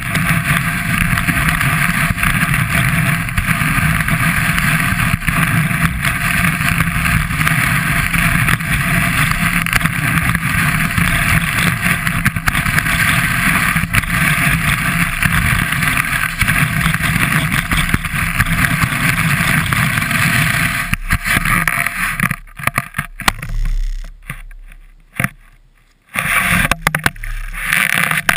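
Skis running fast over groomed snow, with wind rushing over a camera mounted low on the ski: a loud, steady rushing hiss. About 21 seconds in it breaks up and fades as the skier slows to a stop, with a few short scrapes of snow near the end.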